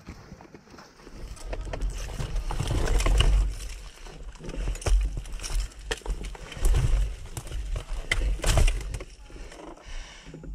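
Dirt bike rolling slowly over loose rock, stones clattering and knocking under the tyres, with low rumbling thumps coming and going.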